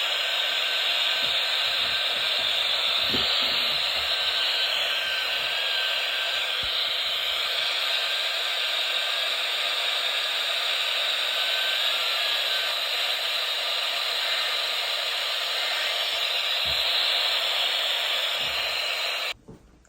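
Static hiss from a weather radio receiver on a weak signal: a steady rushing noise that cuts off suddenly near the end.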